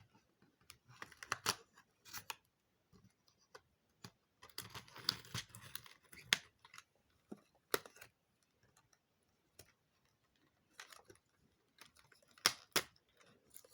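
Intermittent small clicks, taps and rustles of a cardboard advent calendar and its plastic-wrapped contents being handled, with a longer rustle about five seconds in and a few sharper clicks later.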